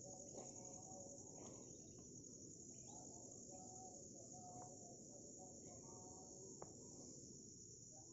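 Faint, steady high-pitched chorus of insects, continuous throughout.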